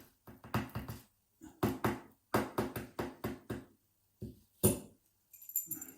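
Small metal parts of a Euro cylinder lock clicking and clattering in quick irregular succession as its core is pulled out and the pins and springs spill, with one louder knock near the end.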